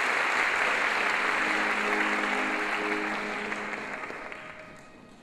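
Audience applause that dies away over about four seconds, with soft music playing underneath.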